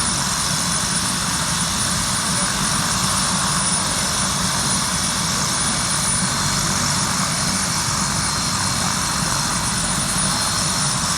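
Helicopter running close by: a steady, unbroken rotor and engine noise.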